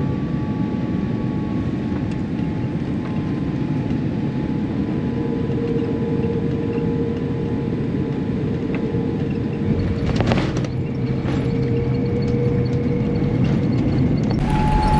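Jet airliner cabin noise around landing: a steady rush of engines and airflow with faint whining tones, one of them slowly dropping in pitch early on. About ten seconds in, a deeper rumble sets in.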